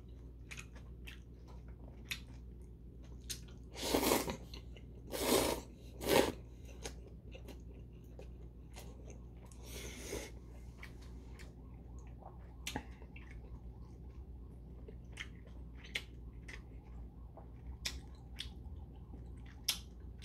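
Close-miked chewing of bibim-guksu noodles with whelk and shiitake mushrooms: wet mouth clicks and smacks throughout, with three short, loud slurps of noodles about four to six seconds in and a softer one about ten seconds in.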